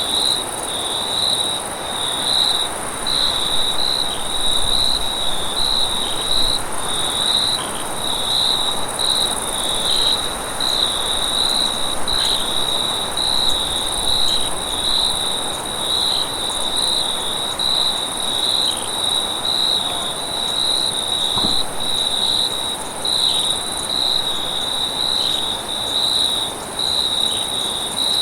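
Night-time forest insect chorus: crickets chirping in a steady pulsing rhythm, over a continuous high-pitched insect trill.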